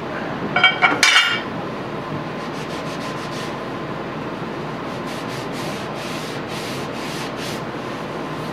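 Scotch-Brite abrasive pad rubbed back and forth on the surface grinder's metal parts, scrubbing off residue, as a steady rubbing with faint repeated strokes. A brief louder burst comes about a second in.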